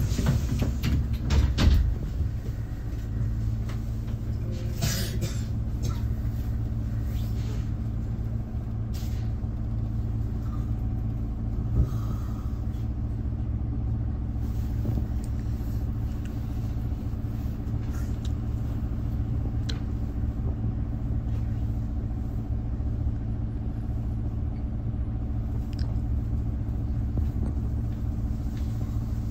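Low-floor city bus engine idling steadily, heard from inside the passenger cabin, with a few knocks and clatters in the first two seconds.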